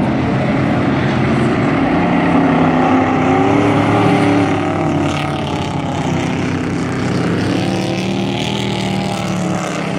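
Several dirt-track race trucks' engines running hard at racing speed. The engine notes rise and fall as the trucks accelerate and pass, swelling twice.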